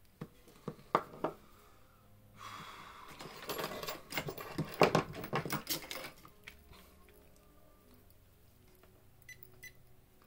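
Handling noise: a few sharp clicks and knocks, then a few seconds of scratchy, hissing noise dense with clicks, and two faint clicks near the end.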